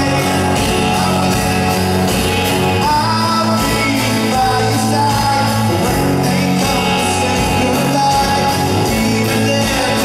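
Live rock band playing with a male lead vocal over acoustic guitar, electric guitars and drums, recorded from the audience in a concert hall.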